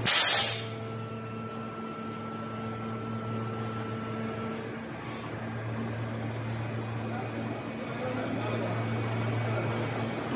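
PET preform injection molding machine running with its mold closed: a steady low hum, opened by a loud hiss lasting about half a second. A fainter whine above the hum stops about halfway through.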